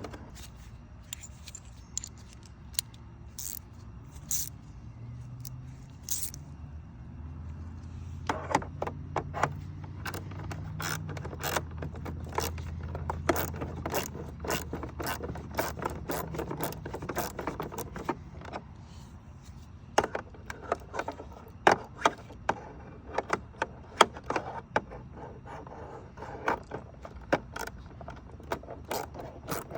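Irregular clicks, taps and scrapes of a screwdriver and small screws working against the plastic dispenser trim of a refrigerator. The clicks come more often from about eight seconds in.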